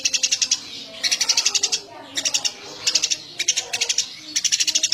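Eurasian tree sparrow chirping constantly: quick runs of rapid, high chirps, each run under a second, repeating about six times with short pauses between.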